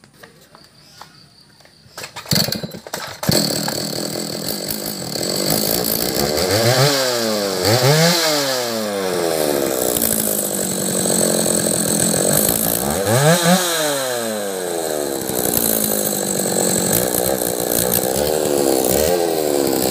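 Stihl MS 310 two-stroke chainsaw engine, fitted with a non-original replacement carburettor, pull-started and catching about three seconds in. It then runs at idle, with the throttle blipped several times so the engine speed rises and falls back.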